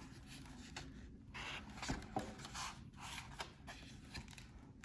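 Faint rustling and a few soft ticks of paper being handled, typical of a book's page being turned.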